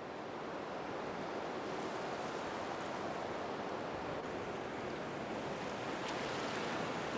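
Steady rushing water sound, swelling gently at first and then holding even, with no music.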